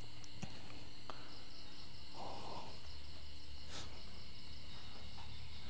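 Night insects chirring steadily, several high tones held without a break, over a low steady hum.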